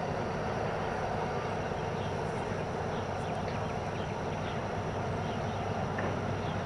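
Distant DR1A diesel multiple unit running along the line toward the station: a steady low engine hum under a continuous outdoor background noise.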